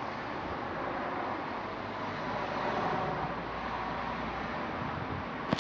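Steady street traffic noise, swelling slightly as a vehicle passes about three seconds in, with a sharp click near the end.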